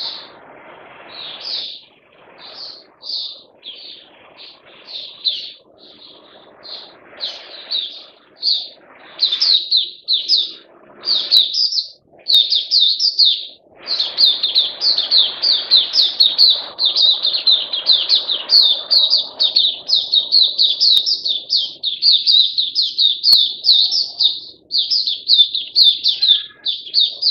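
Red-whiskered bulbul singing: short chirping notes, spaced out at first, then a fast, almost unbroken run of notes from about halfway on. The bird is back in song after two months of silence.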